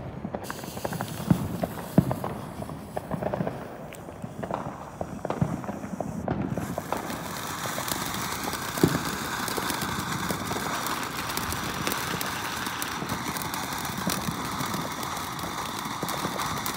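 A ground fountain firework: a few scattered pops and knocks, then about six seconds in a steady hissing spray starts, laced with fine crackling, as the fountain shoots its sparks.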